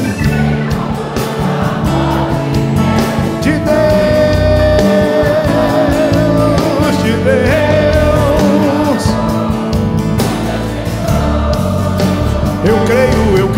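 Crowd singing a Portuguese worship song along with a live band, the lead singer having handed the line over to the audience.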